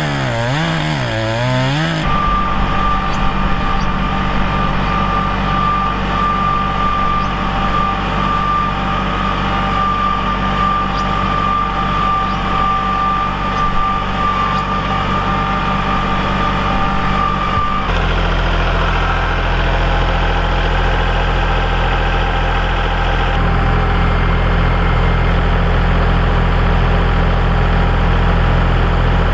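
Engine-driven machinery running steadily in three stretches that change abruptly. The first stretch carries a steady high whine; the last is a steadier, lower engine sound.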